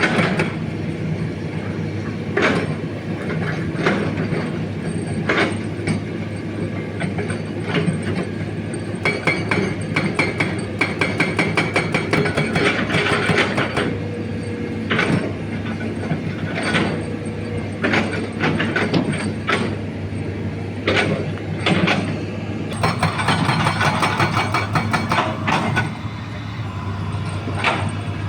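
Hitachi Zaxis 200 excavator's diesel engine running steadily while its hydraulic breaker hammers rock. It strikes in two long bursts of rapid blows, with single sharp knocks and cracks in between.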